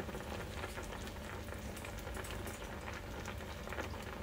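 Penne in a soy milk and cream sauce simmering in a frying pan over medium heat: steady soft bubbling with many small pops.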